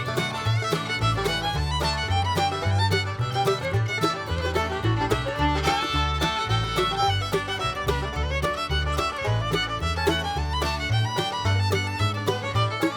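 Background music: upbeat bluegrass-style tune with fiddle over plucked strings and a steady bass.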